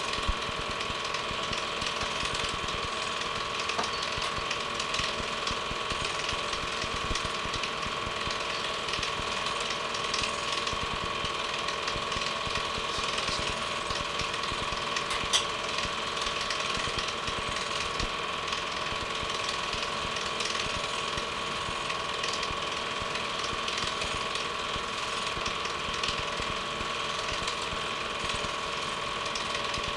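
Film projector running: a steady whir with a fast, even mechanical clatter.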